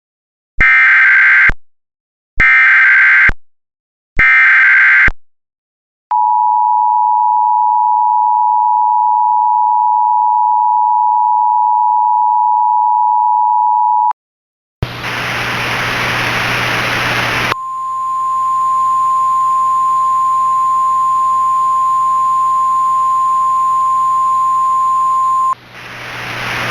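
Emergency Alert System tones: three short bursts of the warbling SAME header data, then the two-tone EAS attention signal held for about eight seconds. After a brief gap a hiss of static with a low hum comes in, and a single steady alert tone sounds over it for about eight seconds before the hiss continues alone.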